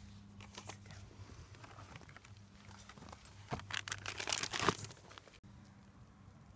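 Crinkling and rustling handling noise, with a dense run of crackles from about three and a half to five seconds in, over a low steady hum.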